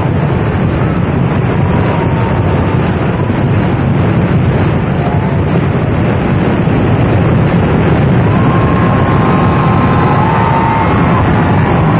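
Continuous loud rumble of a daytime temple fireworks barrage, the blasts merging into a steady roar that grows a little louder about eight seconds in.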